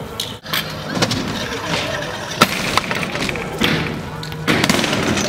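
Skatepark din: a steady rushing background with a few sharp clacks, the loudest about two and a half seconds in, and a voice faintly mixed in.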